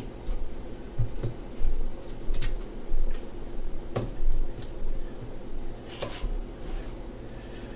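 Kitchen knife cutting russet potatoes into cubes on a plastic cutting board, with irregular knocks as the blade goes through and strikes the board.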